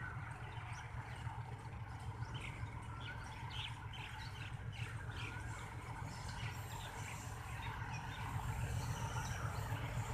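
Low rumble of an approaching HBU20 diesel locomotive, growing slowly louder, with birds chirping a few times in the first half.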